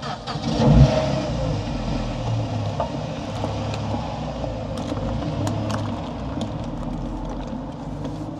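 A car engine running close by, a low steady rumble, with a loud thump about a second in. From about three seconds on there are a few light clicks as the metal clasps of a leather briefcase are worked open.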